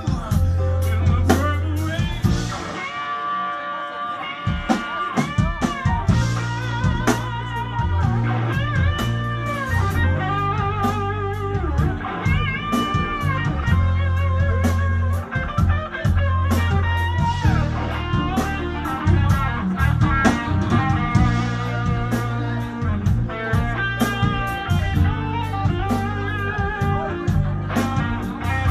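A live rock band plays a slow instrumental passage. An electric guitar plays a solo of long, bent notes with vibrato over a drum kit with steady cymbal strokes and a sustained bass line.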